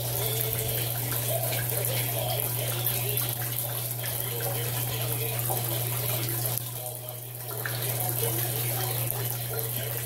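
Water in a glass-cylinder vortex fountain, swirling down a funnel-shaped whirlpool and draining into the barrel beneath. It makes a steady running-water sound that dips briefly about seven seconds in.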